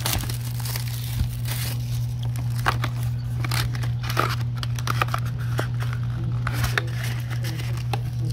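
Cellophane shrink-wrap crinkling and tearing as it is pulled off a trading-card booster box, then the cardboard box and the foil booster packs inside being handled, in irregular crackles and rustles. A steady low hum runs underneath.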